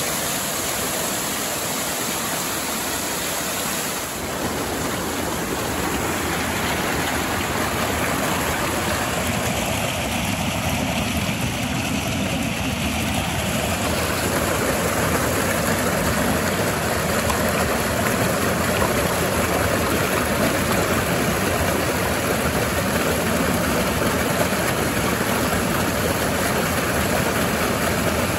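Mountain creek water rushing as it cascades over fallen logs and rocks, a steady loud rush that grows a little louder past the middle.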